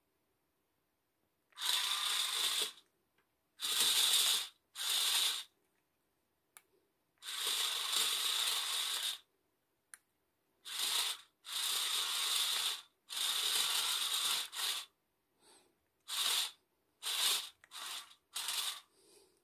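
Small geared motors of a radio-controlled mecanum-wheel robot car running in about a dozen separate spurts, each half a second to two seconds long, stopping completely between them as the car is driven about.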